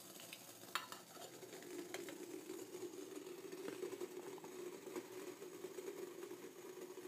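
Water at a full boil in a metal pot over an alcohol stove, with a steady drone, a fizzing hiss and small ticks. There is a sharp click about a second in.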